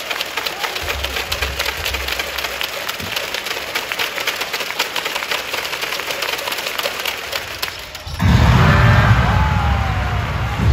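Arena crowd clapping in a steady, rapid patter. About eight seconds in, louder arena music with a deep bass starts over the public-address system.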